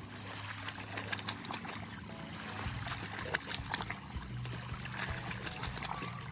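Small waves lapping and splashing against a rocky lake shore, with a low hum that comes and goes.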